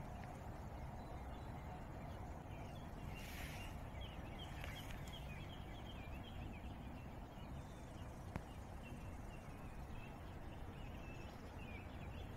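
Faint outdoor ambience: a low steady rumble, with birds chirping in quick runs of short high notes from a few seconds in.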